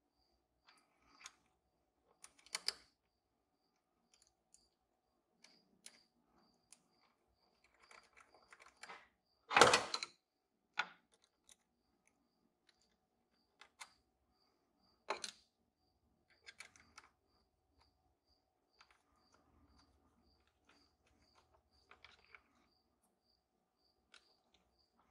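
Hand work on a throttle position sensor and throttle body: scattered light clicks and taps of a screwdriver and small parts as the sensor is fitted and its screws turned, with one louder knock about ten seconds in.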